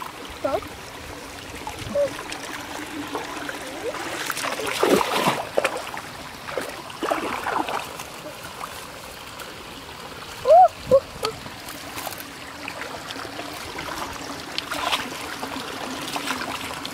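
Shallow muddy stream trickling, with scattered splashes and a few short watery plops as bare feet wade through the water and mud; the loudest are two quick plops about ten seconds in.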